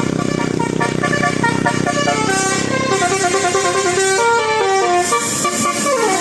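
Bus 'telolet basuri' multi-tone musical horn playing a quick tune of stepped notes, ending in a falling glide.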